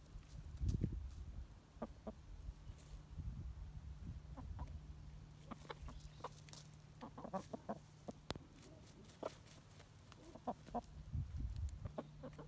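Hens clucking in short, quiet calls, bunched into two clusters in the second half, with scattered light clicks and a couple of low thumps, one about a second in and one near the end.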